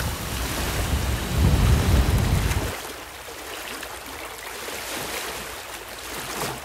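Sea water and waves with a heavy low rumble, which drops suddenly about two and a half seconds in to softer, steady surf washing on a shore.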